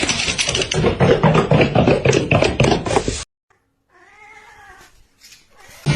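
A cat yowling loudly and harshly for about three seconds, then, after a brief silence, a quieter wavering meow.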